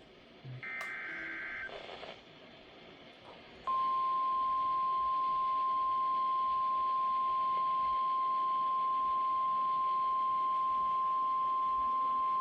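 NOAA Weather Radio EAS alert: a short burst of SAME header data, a warbling two-tone screech, about a second in, then from about four seconds in the steady, loud 1050 Hz warning alarm tone, held for about nine seconds. The tone signals that a warning message follows.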